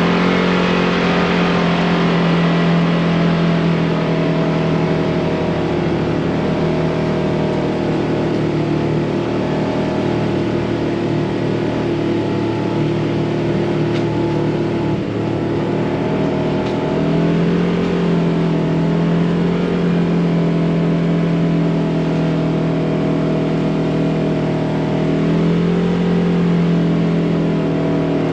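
Polaris RZR side-by-side's engine running steadily while driving on a trail. Its pitch dips and rises a little a couple of times, about halfway through and again near the end.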